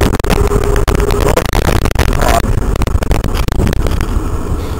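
Wind buffeting the microphone and road rumble from an e-bike riding at speed, with frequent small knocks and rattles from the bike and road. A steady whine fades out about a second and a half in.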